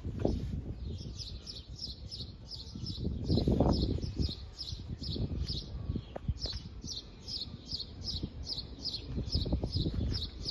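A small bird chirping over and over, short high chirps about three a second, with low rumbling knocks underneath, loudest a few seconds in.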